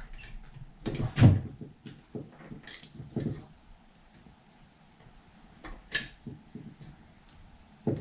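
Small screws being handled and fitted with a little Phillips screwdriver into a hard-drive enclosure frame: scattered small metal clicks and light knocks, with a dull thump about a second in and a sharp click about six seconds in.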